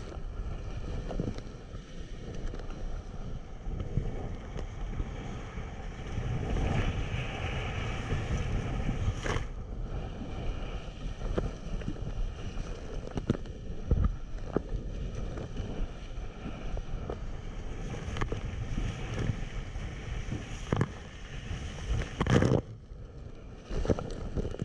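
Hobie Cat 16 catamaran sailing fast: a steady rush of water along the hulls and wind buffeting the microphone, broken a few times by sudden loud hits as the boat meets waves.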